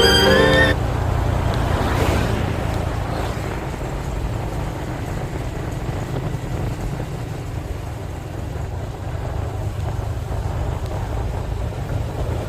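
Steady low rumble of a moving vehicle with wind and travel noise, swelling briefly about two seconds in. A violin tune cuts off in the first second.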